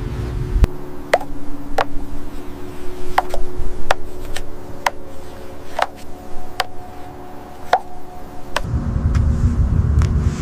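A series of sharp clicks and knocks at irregular intervals over a steady hum, with a low rumble that stops about half a second in and comes back near the end.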